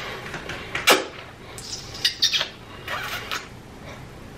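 A person's short squeaky mouth noises, kiss-like smacks and chirps, a few in a row.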